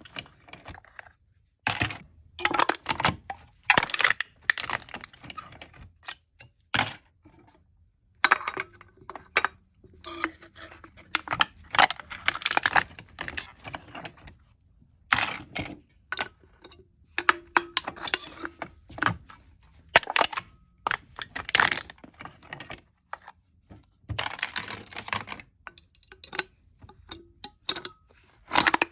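Aluminium cans being crushed: sharp metallic crinkling and crackling in repeated bursts of a second or two, with short pauses between them.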